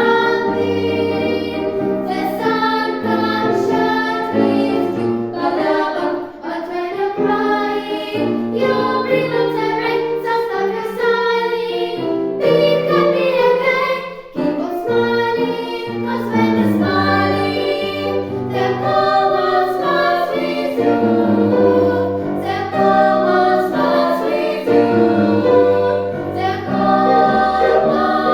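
A vocal ensemble singing together in harmony, with continuous sustained and moving notes.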